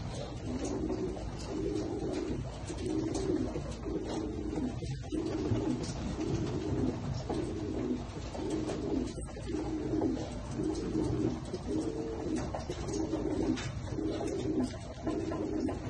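Domestic pigeon cooing over and over, a low coo about once a second.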